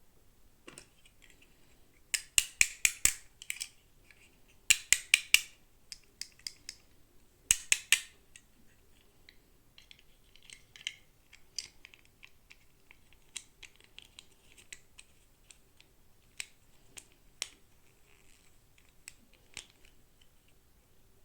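Toy packaging being opened and handled: three bursts of rapid sharp clicks and crackles in the first eight seconds, then scattered softer clicks.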